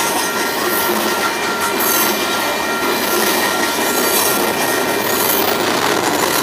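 Freight train of coal hopper cars passing at speed: a steady rush of wheel and rail noise, with a thin, steady high squeal from the wheels over it.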